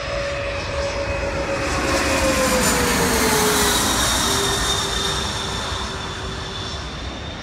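Twin-engine regional jet passing low overhead on its landing approach: jet engine noise that swells to its loudest about three seconds in, with a whine that drops in pitch as it goes past, then eases off.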